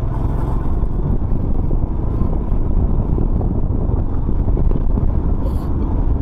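Royal Enfield Himalayan motorcycle on the move: a steady rumble of wind on the microphone, with engine and road noise beneath it.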